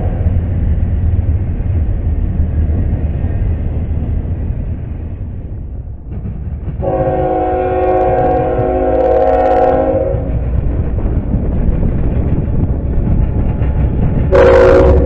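Double-stack container train rolling past with a steady low rumble of wheels on rail. Then a CSX freight locomotive sounds its multi-note air horn, a chord held about three seconds, and blasts it again near the end as it comes close, its engine rumbling.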